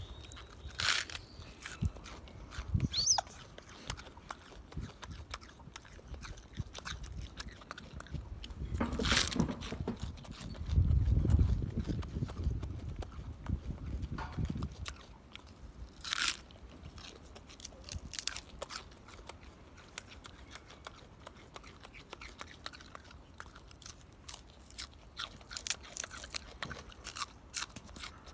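Golden snub-nosed monkeys biting and chewing food, with scattered crunches and sharp clicks. For a few seconds midway a louder low rumbling noise rises over it.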